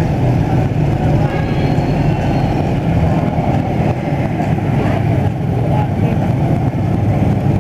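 Street traffic: a steady, loud rumble of vehicles running past, with no break or single standout event.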